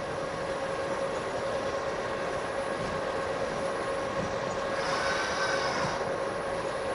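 A steady hum with a constant tone runs throughout. About five seconds in, a higher whine comes up for roughly a second as the joint motors of the Yaskawa Motoman HC10DT collaborative robot arm drive it toward its next point.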